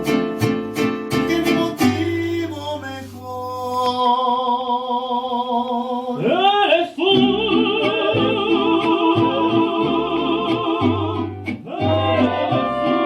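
Mariachi band playing: rhythmic strummed guitars at first, then long held notes with vibrato over the accompaniment, and the strumming picks up again near the end.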